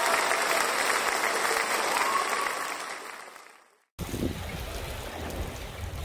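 Air-pump aerator bubbling and fizzing in the water of a fish live-well bag, an even crackling hiss that fades out about three and a half seconds in. After a brief silence, wind rumbles on the microphone.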